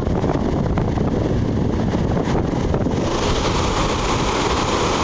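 Wind buffeting the microphone over the steady rush of river water churning below a dam. The rushing hiss grows stronger about three seconds in.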